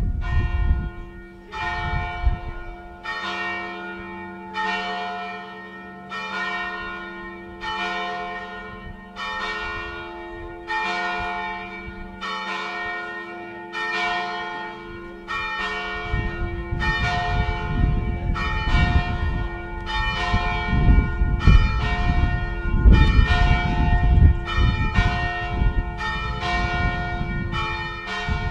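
Church bells ringing: ringing strikes that each hang and fade, about one every second and a half at first, then coming faster and overlapping from about halfway, with a low rumble beneath them.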